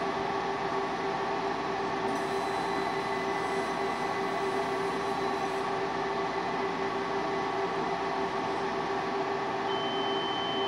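Trotec Speedy 300 laser engraver running as its head moves over the label, cutting and engraving it: a steady mechanical hum with a constant low tone. A thin high tone joins near the end.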